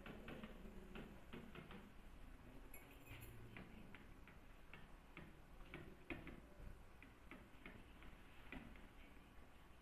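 Faint, irregular clicks and taps of a stylus tip on the glass of an interactive display as words are handwritten, a few light ticks each second.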